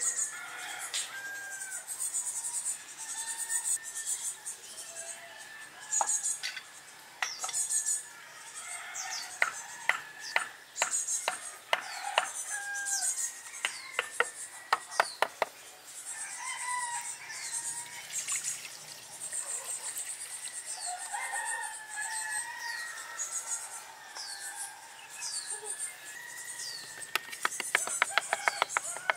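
Chickens clucking and small birds chirping. Around the middle comes a run of sharp knocks from a tool striking a split-bamboo trough.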